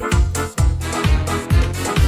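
Upbeat pop dance backing track with a kick drum about twice a second under bass and keyboard chords, no vocals.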